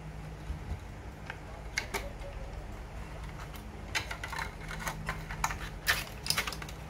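Irregular clicks and light knocks as a power-supply circuit board and its foam insulating sheet are handled and slid out of a thin metal casing, busiest in the second half, over a faint steady low hum.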